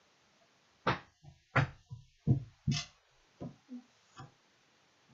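A quick, irregular run of about nine knocks and thumps, starting about a second in and stopping after about four seconds.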